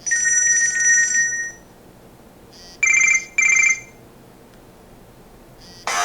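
Nokia 6700 Classic phone playing short alert tones from its loudspeaker: a held electronic tone for about a second and a half, then two short trilling rings like an old telephone bell.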